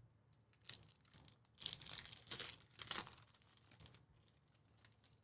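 Trading card pack wrapper being torn open and crinkled, in a crackly burst of about a second and a half, with a few light clicks before and after.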